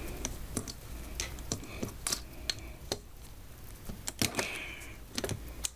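Screwdriver driving a wire terminal screw down inside a vacuum cleaner's plastic housing: irregular small clicks and taps of metal on plastic, two or three a second, as the screw is tightened.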